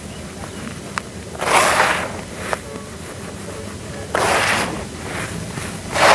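Crumbly red soil mix being scooped up by hand and let fall back into a plastic tub: a gritty, rushing pour three times, about two seconds apart, with a couple of sharp ticks in between.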